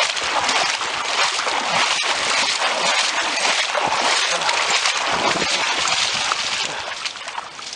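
Footsteps wading through shallow street floodwater, with continuous splashing and sloshing.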